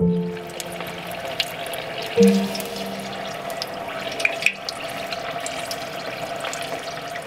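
Tempura frying in hot oil: a steady sizzle full of small crackles, which starts abruptly. A few soft sustained music notes sound over it at the start and again about two seconds in.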